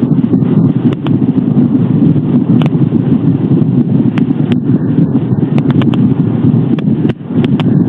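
Wind buffeting the nest-box camera's microphone: a loud, steady low rumble with scattered sharp clicks, briefly dropping away about seven seconds in.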